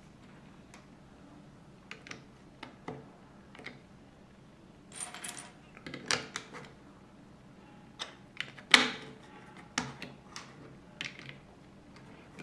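Plastic Lego bricks and plates clicking and clattering as they are handled and pressed together, a scatter of sharp clicks with a louder snap a little under nine seconds in and a short rattle of pieces around five seconds.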